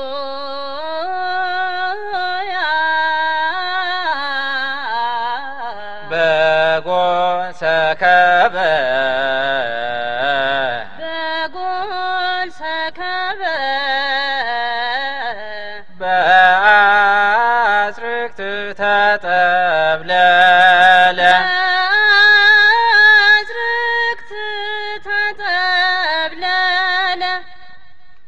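Ethiopian Orthodox hymn (mezmur) sung in Amharic/Ge'ez: a woman's solo voice carries a wavering, ornamented melody, and fuller passages with lower voices joining come twice, about six and sixteen seconds in. The singing fades out near the end.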